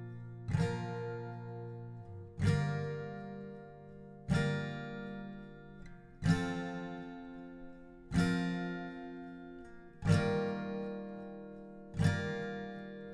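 Background music: an acoustic guitar strumming slow single chords, one about every two seconds, each left to ring out and fade.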